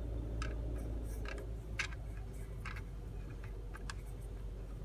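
Scattered faint clicks and ticks from handling a racing quadcopter's carbon-fibre frame and its screw-on video antenna, over a low steady hum.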